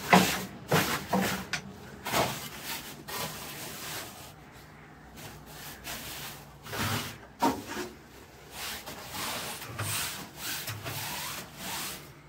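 Broom bristles brushing and scraping against bare wooden walls in a series of irregular strokes, sweeping down cobwebs.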